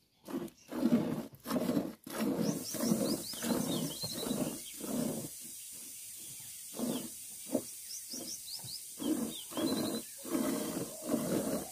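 Milk squirting by hand from a cow's teats into a steel bucket, in a steady rhythm of about two squirts a second.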